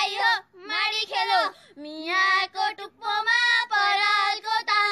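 Young female voices singing a traditional Nepali threshing song unaccompanied, in high held notes with short breaks between phrases.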